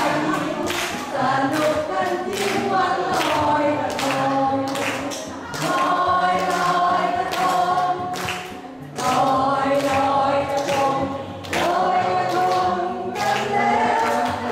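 A small group of mixed voices singing a song together into microphones, amplified through the hall's PA, with hand clapping in a steady beat about twice a second.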